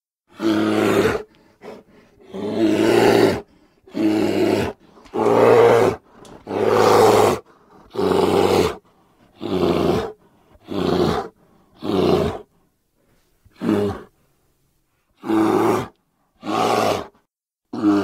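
Designed bear roar sound effects for the extinct short-faced bear (Arctodus): a series of about a dozen short, deep roars, each under a second and a half, with brief silences between them.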